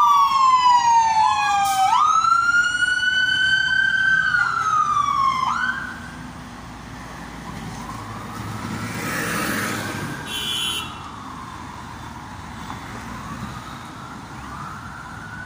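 Dublin Fire Brigade fire engine's siren on a slow wail, loud and close as the appliance pulls away. The siren drops off sharply about six seconds in, and fainter wailing carries on as it moves off into the traffic.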